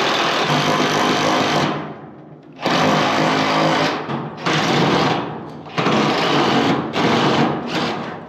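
Cordless drill working on a corrugated steel roofing sheet, running in spells of one to two seconds with short pauses, the longest about two seconds in.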